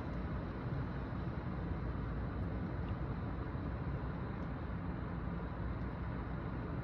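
Heavy thunderstorm rain and wind, a steady, even rush of noise.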